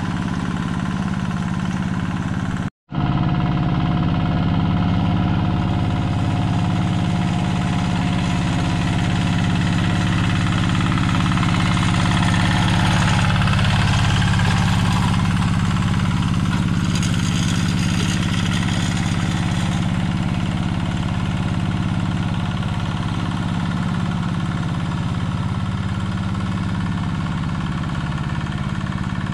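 Yanmar two-wheel hand tractor's single-cylinder diesel engine running steadily under load while plowing a flooded rice paddy, with wet mud churning and splashing at the wheels, more so in the middle. The sound drops out for a moment about three seconds in.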